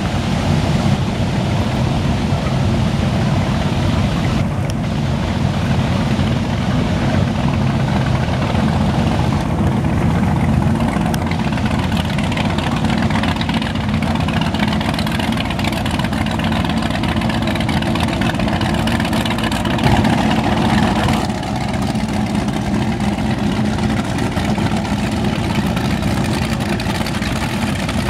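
Performance speedboats running past one after another at speed. Their engines make a loud, steady drone, with hull and water rush mixed in, and it swells briefly about twenty seconds in.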